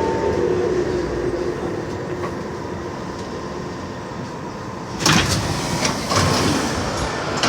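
Lille metro (VAL) train: the traction motor whine falls away in the first second over a steady running rumble. About five seconds in comes a loud knock with clatter, and another a second later, typical of the sliding doors banging in a faulty closing.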